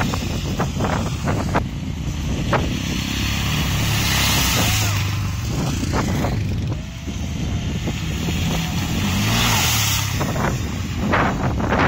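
A Honda Activa scooter and then a motorcycle ride through a shallow water-filled stretch of dirt track, their engines running and water splashing up from the tyres. The splashing is loudest about four to five seconds in and again about ten seconds in.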